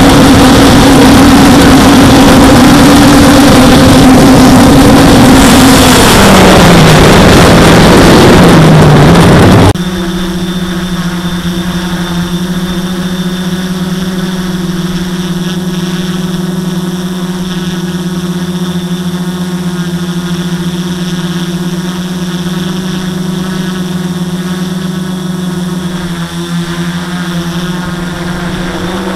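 Quadcopter motors and propellers heard from the onboard camera: a loud wind-buffeted run with a motor whine that drops in pitch and wavers. About ten seconds in the sound cuts abruptly to a quieter, steady hum of constant pitch.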